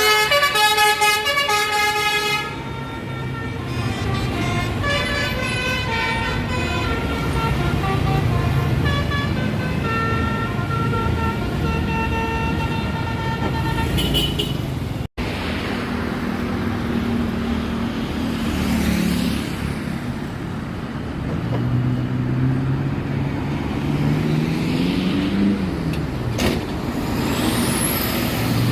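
Basuri 'telolet' multi-tone bus horn playing a tune of stepped notes for about the first half. After a sudden cut, bus engines run and rev, with one engine note rising and falling.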